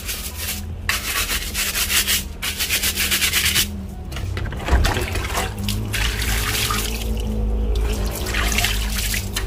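Scrubbing on a car battery's plastic case during a soap wash, with fast back-and-forth strokes for about the first four seconds, then slower, irregular rubbing.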